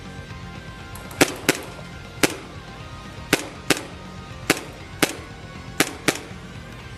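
Airsoft gun firing about nine sharp snaps at an uneven pace, several of them in quick pairs about a third of a second apart.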